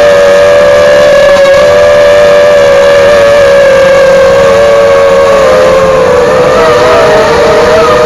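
Eachine Falcon 250 quadcopter's brushless motors and propellers whining steadily at cruise. Several close pitches drift against one another, shifting and wobbling a little more near the end as the throttle changes.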